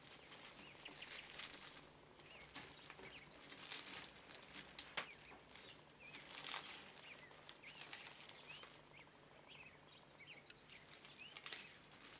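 Faint rustling and crackling of brittle dried bell pepper flakes being brushed and shaken by hand off plastic dehydrator mesh sheets, with a few sharper ticks. Faint bird chirps are heard in the background.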